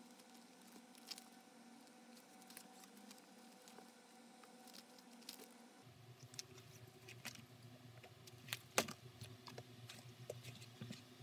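Faint scratching and light ticks of a leather panel being hand-stitched and handled, thread drawn through the stitching holes. About halfway a low steady hum comes in, and there is one sharper click near the end.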